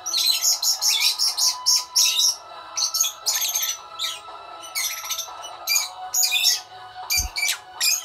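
Fischer's lovebirds chirping, a rapid run of sharp, high-pitched chirps in quick clusters with short pauses between them. A brief dull thump sounds about seven seconds in.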